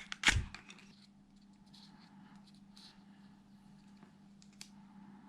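Small plastic camera parts and packaging being handled by hand: a thump about half a second in, then faint scattered clicks and rustles over a steady low hum.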